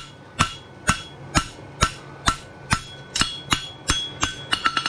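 Farrier's hammer striking a horseshoe on the anvil, about two even blows a second, each leaving a short ringing note, as the shoe is ironed out flat. Near the end come a few quicker, lighter taps.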